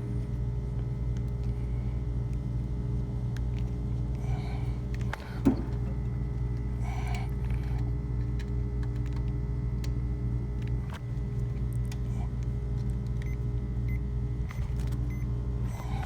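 Steady low electrical hum from running equipment, with a few light clicks and one sharp knock about five and a half seconds in.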